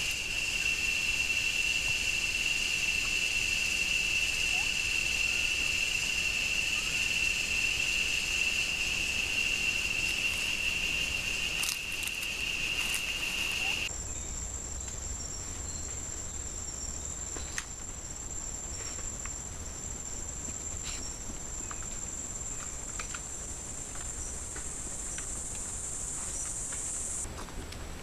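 Tropical forest insects keeping up an unbroken high-pitched drone. About halfway through it switches abruptly to a different, even higher insect tone, with a few faint ticks and rustles here and there.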